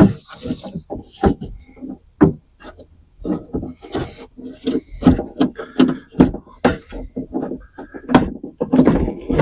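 Irregular knocks, clicks and rattles of a car door latch assembly and its wiring being wrestled inside the door shell, as a plug is forced past a tight spot.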